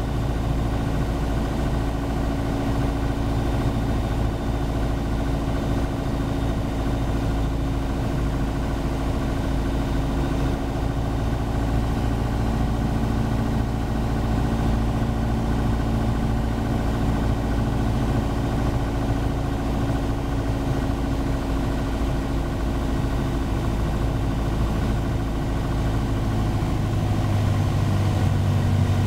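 Single-engine light aircraft's piston engine and propeller running steadily, heard inside the cabin on final approach; the engine note drops a little near the end as power is eased back.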